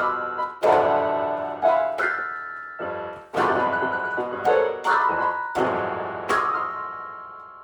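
Piano playing a slow run of struck chords and notes, each left to ring and decay; the last chord, struck a little over six seconds in, fades away toward the end.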